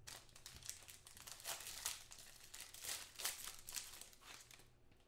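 Foil wrapper of a trading card pack being torn open and crinkled by hand: an irregular run of crackles that dies away near the end.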